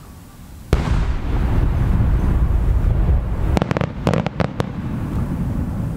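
Aerial firework shell bursting with a deep boom about a second in, its low rumble echoing and rolling on for several seconds. Around four seconds in comes a quick run of sharp cracks.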